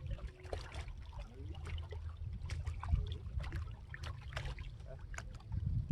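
Scattered clicks and taps with light water trickling over a steady low rumble, as a just-caught crappie is handled.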